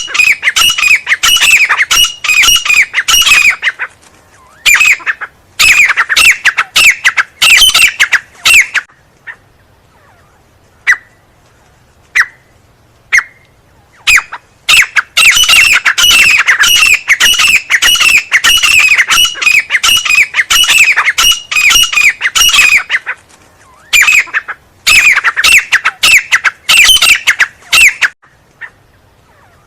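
Francolin (teetar) calling: loud, fast runs of harsh repeated notes in bouts several seconds long. In a lull about ten seconds in, only a few single notes are heard before the calling resumes.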